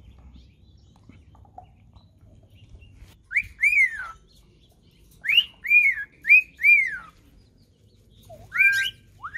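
Cockatiels whistling: clear arched notes that rise and fall, two together about three seconds in, then a run of four, then a rising call near the end.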